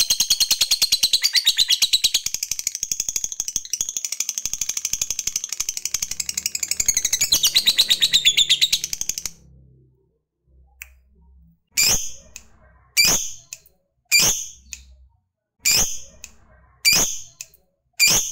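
Lovebird giving its long, fast, unbroken chatter of high chirps (the 'ngekek'), which cuts off about nine seconds in. After a short pause come about half a dozen single sharp calls, roughly a second apart.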